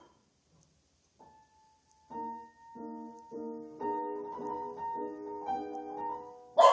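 Steinway grand piano with its lid down, playing a Spanish-flavoured improvisation: a pause with one soft note, then repeated chords from about two seconds in. A dog barks once, loudly, right at the end.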